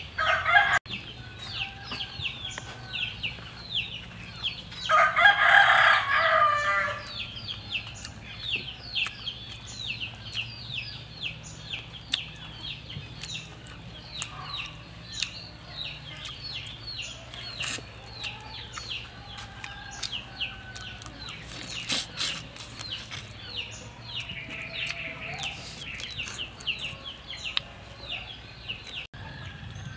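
Rooster crowing once about five seconds in, the loudest sound, over a continuous chatter of rapid high-pitched chirping from small birds or insects.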